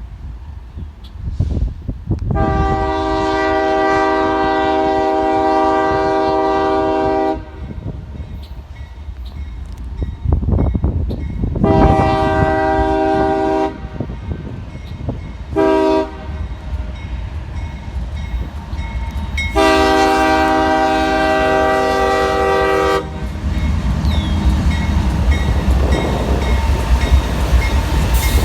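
Multi-note chime horn of a CSX freight locomotive sounding the grade-crossing signal, long, long, short, long, over the low rumble of the diesel engine. After the last blast the train rolls past with its wheels clacking over the rail joints.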